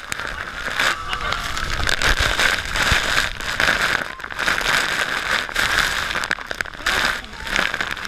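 Heavy waterfall spray and falling water drenching the camera close up, a dense crackling rush with irregular short dips in loudness.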